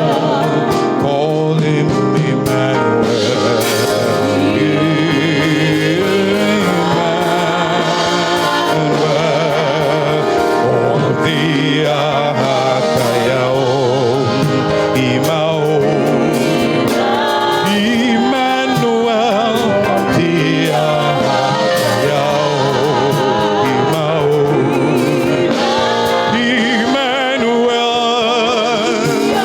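Live gospel worship music: voices singing with vibrato over sustained instrumental accompaniment.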